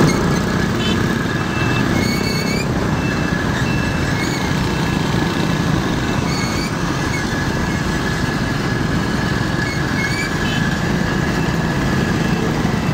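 A motorbike riding in heavy traffic: a steady rumble of engine and road noise, with short high chirps now and then.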